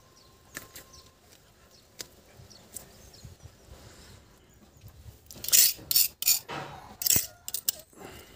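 Handling noises of a plucked chicken carcass and a kitchen knife on a concrete floor: a few light clicks, then several loud, irregular scraping and rustling bursts over the last three seconds.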